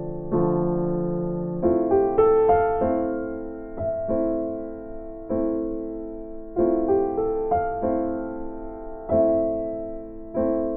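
Background piano music: gentle chords and melody notes, each struck and then fading away.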